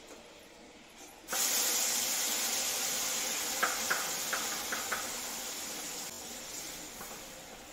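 Wet ground masala paste poured from a mixer jar into hot oil in a steel kadai, meeting the oil with a sudden loud sizzle about a second in that slowly dies down. A few light clicks sound midway.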